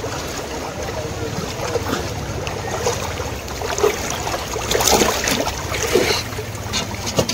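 Several people wading through deep floodwater, the water sloshing and splashing around their legs, with a few louder splashes about five and six seconds in.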